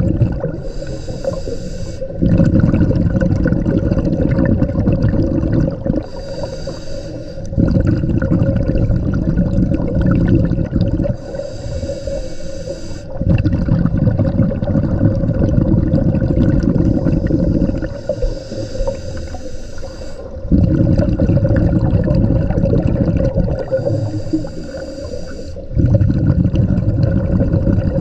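Scuba diver breathing through a regulator underwater: a hissing inhale of about two seconds, then a longer, louder bubbling exhale, repeating about five times.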